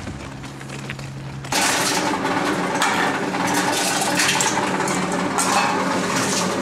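About a second and a half in, the sound cuts to a reverse vending machine for bottle and can returns, running with a steady hum. Bottles clink and rattle over it as they are taken out of a bag.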